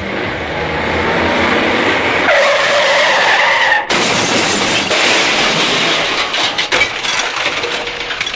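Car sound effects: a car running with a squealing tyre skid from about two to four seconds in, which cuts off suddenly, followed by more of the car's noise.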